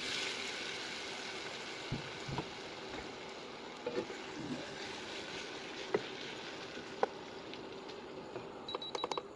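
Chicken pieces cooking in a wok with a steady hiss, a few single knocks of a wooden spatula as the pieces are turned, and a quick run of clatter near the end.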